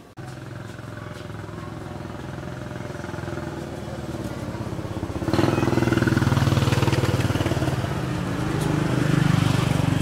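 A motorcycle engine running steadily and growing louder, with a sudden step up in loudness about five seconds in that then holds.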